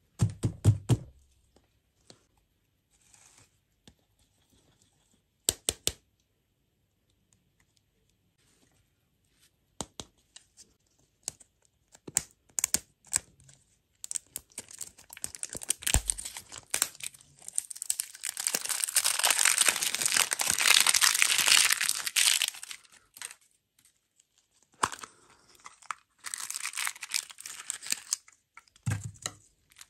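Wrapper being torn and crinkled as it is peeled off a candy surprise egg by hand, in a long crackling stretch through the middle. A few sharp taps and clicks come early on, and there is a low knock near the end.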